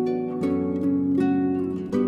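Intro music: a melody of single notes, each struck sharply and left ringing, a new one about every half second.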